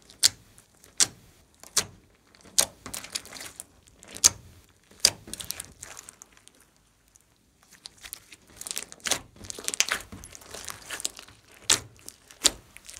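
Glossy slime with foam beads being pressed, stretched and folded by hand: a series of sharp pops and snaps as trapped air bursts, between stretches of crackly squishing, with a short quiet pause midway.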